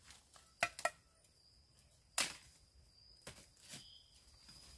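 About five sharp knocks and chops at a clump of young bamboo shoots, the loudest about two seconds in, as the shoots are knocked to shake off ants. A faint, steady high tone comes in partway through.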